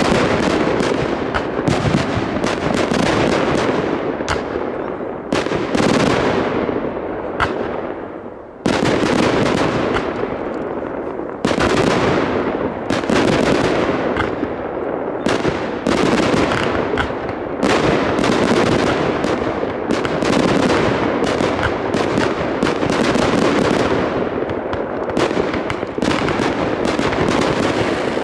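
Fireworks display: aerial shells bursting in rapid succession, a dense unbroken run of bangs and crackling. Fresh heavy volleys start about a third of the way in and again a little past the middle.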